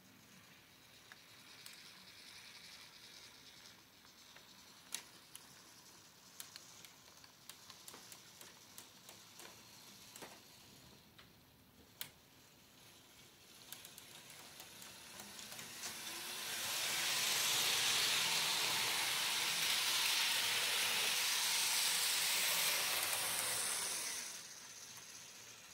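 Electric model train running on its track loop: a steady hissing whir of wheels and motor with scattered light clicks. It grows much louder for several seconds about two-thirds of the way through, then drops back near the end.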